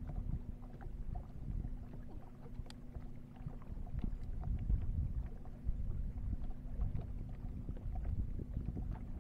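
Boat motor running steadily at trolling speed, a low even hum, with wind and water rumble on the microphone and small scattered clicks.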